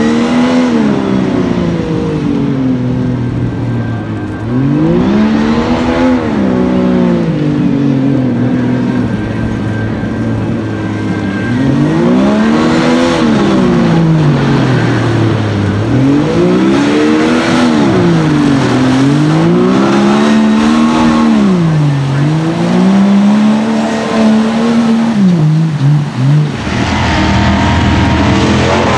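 Jeep Wrangler YJ engine at full throttle in deep mud, revving up and dropping back about five times as the tyres churn. Near the end a different, steadier engine sound takes over.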